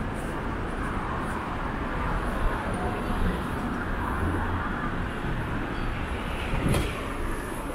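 City street ambience: steady traffic noise, with a single sharp knock near the end.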